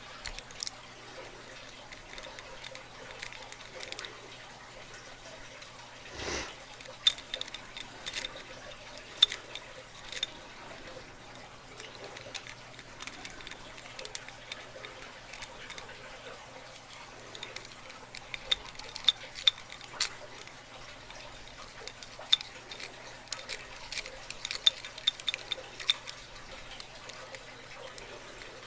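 Lock pick and tension wrench working inside a lock: scattered small metallic clicks and scrapes as the pins are picked, with a brief duller handling noise about six seconds in.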